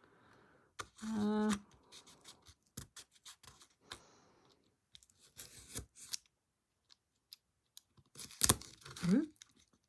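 Craft knife cutting and scraping into the backing of a small mirror frame: a run of small scratches and clicks, with a sharp knock near the end.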